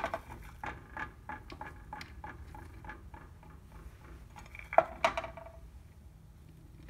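Small clicks and taps of diced butternut squash and carrot pieces being scooped off a paper plate and dropped onto a food dehydrator tray, with a louder knock and a short ring about five seconds in.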